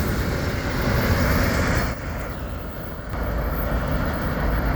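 Loaded autorack freight cars rolling past on the rails: a steady rumble of wheels with the cars rattling. The sound dips briefly about two seconds in, then comes back.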